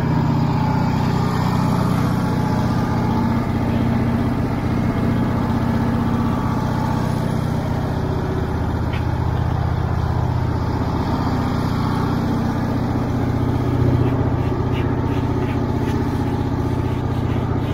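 Portable band sawmill's engine running steadily, driving an old band blade through a log that is cutting a little slow.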